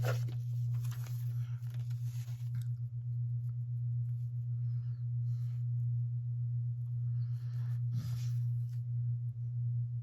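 Old paper ephemera rustling and shuffling as it is handled, in bursts over the first two and a half seconds and again near the end, over a steady low hum.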